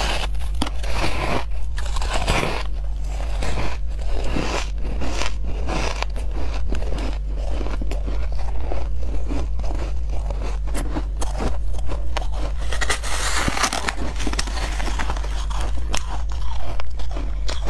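Close-up crunching and chewing of mouthfuls of fluffy, snow-like ice taken from a metal spoon: dense crisp crunches packed closely together throughout, over a steady low hum.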